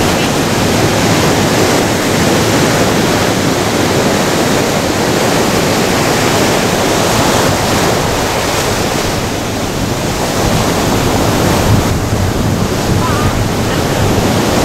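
Ocean surf breaking and washing up the sand around rocks: a loud, steady rush of water.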